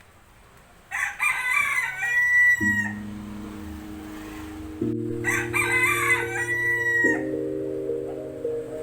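A rooster crowing twice, about four seconds apart, each crow ending on a drawn-out held note. Soft music with sustained chords comes in under it after the first crow.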